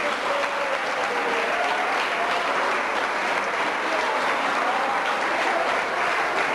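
A large seated audience applauding, dense and steady clapping throughout.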